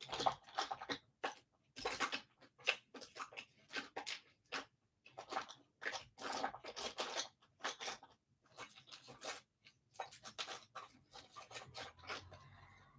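Irregular close-up crackling, clicking and rustling, the small handling noises of someone working right next to the microphone.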